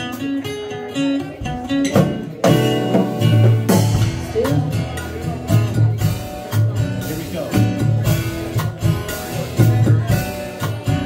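Live band's instrumental break: acoustic and electric guitars with a drum kit and no vocal. A few picked guitar notes open it, and the full band with a steady kick-drum beat comes in about two seconds in.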